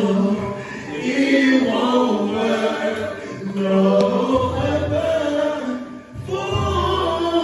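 Live band music with a vocalist singing a melodic line through the PA over keyboard; low bass notes come in about halfway through.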